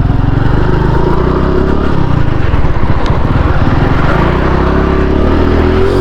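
Honda Pop 110i's small single-cylinder four-stroke engine running steadily as the scooter-style motorcycle is ridden off. The owner hears a strange rattling vibration from the front end in this running; he says it is still there after removing the ignition key he suspected.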